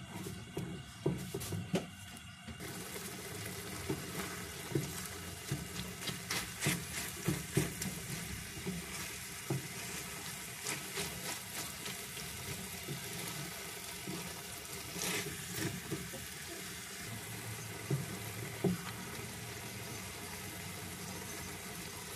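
Eggs and chicken pieces sizzling in a frying pan as a plastic spatula stirs and scrapes them, with many short scraping knocks. The steady sizzle comes up about two and a half seconds in.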